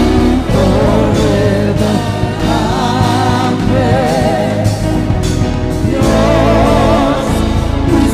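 Live gospel worship music: vocalists singing with wide vibrato over a band with heavy bass.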